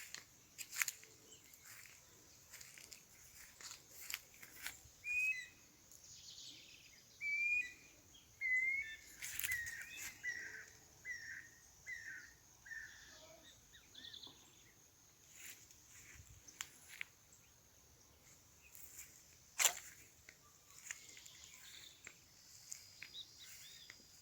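Birds singing in the countryside: one bird repeats a series of short, slightly falling whistled notes about twice a second for several seconds in the first half, among other scattered chirps. Sharp clicks are heard throughout, with one louder click near the end.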